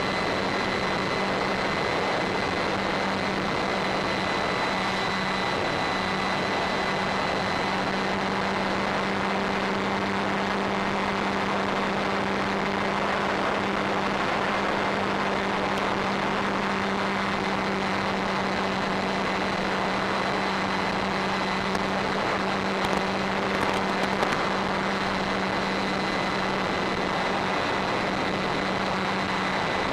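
Onboard sound of a Durafly Tundra RC plane in flight: its electric motor and propeller running at a steady cruise under heavy, even rushing hiss. A steady low hum and a faint higher whine hold throughout.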